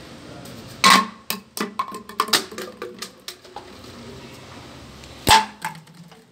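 Empty plastic bottles clattering on a concrete floor as they are thrown and handled. There is a sharp hit about a second in, then a run of lighter knocks and rattles, and another sharp hit about five seconds in.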